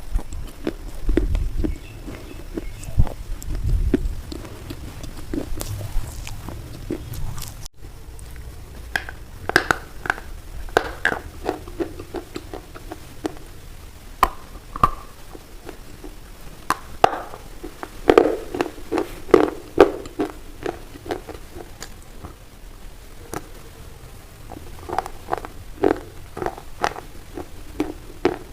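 A big white bar of soap being cut: irregular crisp crunches and scraping strokes, with a brief break about a third of the way in.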